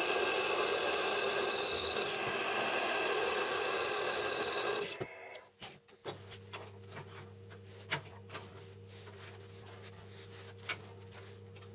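Electric drill boring through a steel bar, the motor running steadily as the bit cuts. It stops about five seconds in, leaving a low hum and a few light clicks and knocks.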